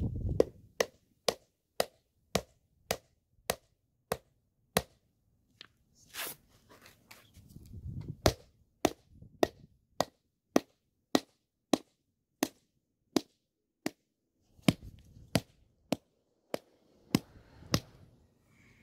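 Rubber mallet striking concrete pavers to tap them down into place: a long series of short, sharp knocks at about two a second, in three runs with brief pauses between them.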